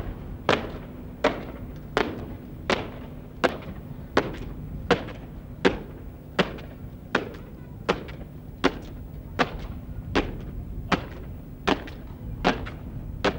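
Boots of goose-stepping soldiers stamping on the pavement in a slow, even rhythm, about one sharp stamp every three-quarters of a second, each with a short echo.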